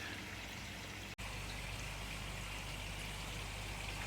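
Steady running and splashing of koi pond water. It cuts out for an instant about a second in.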